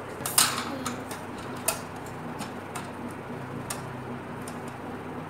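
Irregular light clicks and taps of small plastic toy pieces being handled and set down, the loudest about half a second in, over a steady low hum.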